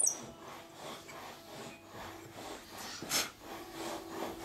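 A sharp click at the start, then faint scraping of a small hand tool on the wooden setar neck, with one short, louder rasp about three seconds in.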